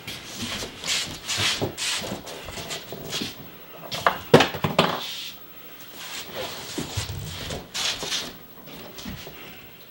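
Rustling and shuffling of a person moving about and pushing through a hanging cloth curtain, with a couple of sharp knocks about four seconds in.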